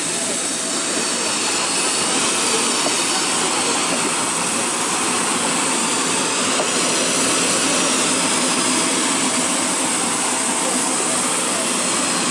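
Steady jet engine and air noise of a Boeing 777-300ER with its two GE90-115B turbofans, heard from inside the aircraft; a slight rise in level about a second in.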